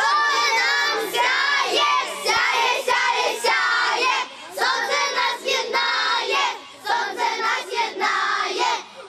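A group of children singing a song together at full voice, in phrases with short breaks between them.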